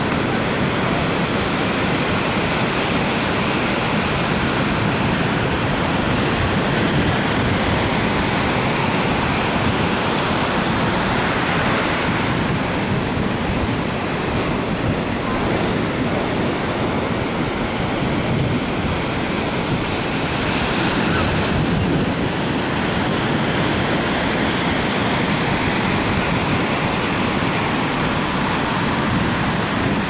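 Bay of Bengal surf breaking and washing up a sandy beach: a steady, continuous rushing of waves.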